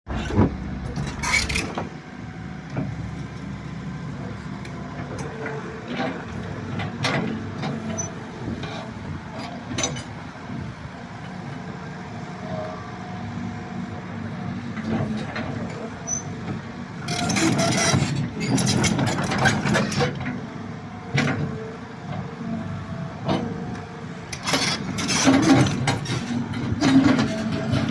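Kobelco excavator's diesel engine running steadily, with clusters of loud clanks and knocks from the machine about two-thirds of the way in and again near the end.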